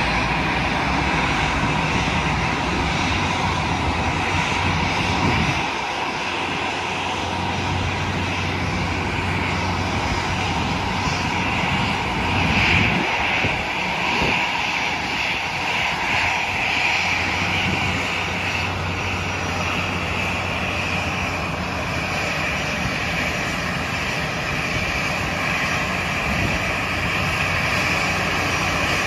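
Jet engines of an Airbus A320-family airliner taxiing at low thrust: a steady whine over a low rumble.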